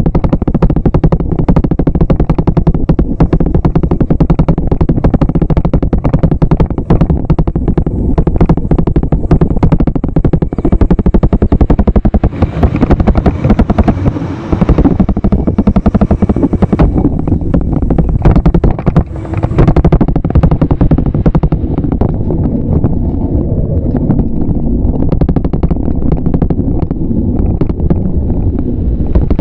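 Dense, rapid rattling and knocking from a moving bicycle, its front-mounted camera jolting along with the wire basket over the road surface. It eases off briefly twice.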